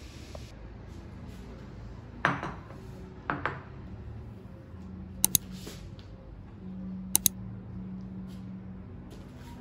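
Crockery clinking: two ringing knocks, then two pairs of short sharp clicks, over a low steady hum.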